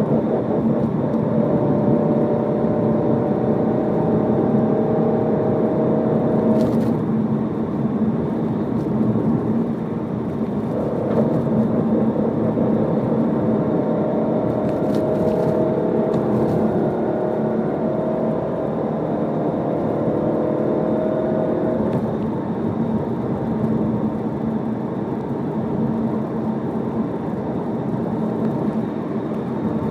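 Vehicle muffler running steadily with an abnormal exhaust noise: a constant low hum, with higher droning tones layered over it that sound for the first several seconds, stop, come back for about ten seconds, then die away.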